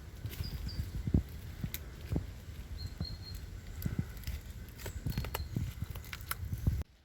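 Footsteps on the forest floor, with irregular thuds and crackling clicks like twigs and leaf litter underfoot, and a few faint, short high bird chirps. The sound drops away abruptly near the end.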